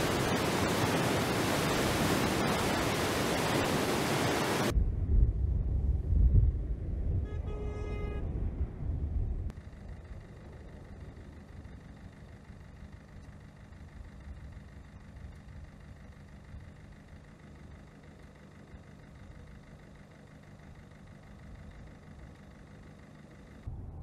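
Floodwater rushing loudly through the gates of a sluice, cutting off about five seconds in. Then a low rumble with a short honk near eight seconds. From about ten seconds on, much quieter steady water flow with a faint hum.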